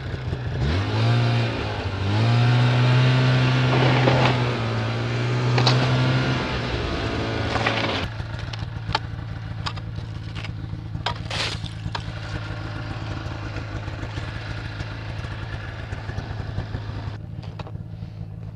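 Snowmobile engine revving up and running loudly and steadily, then falling away about eight seconds in. A lower steady engine hum continues under scattered sharp knocks and crunches.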